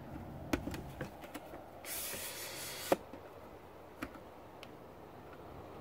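Handling noise from a phone being repositioned: scattered light clicks and taps, a hiss lasting about a second about two seconds in, then one sharp click just before three seconds.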